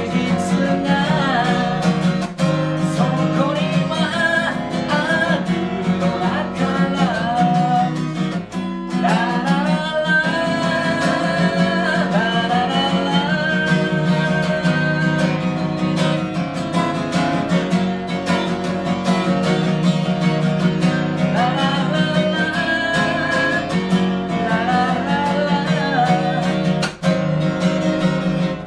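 Acoustic guitar strummed steadily, with a singer's voice carrying a melody over it: a solo live song with guitar accompaniment.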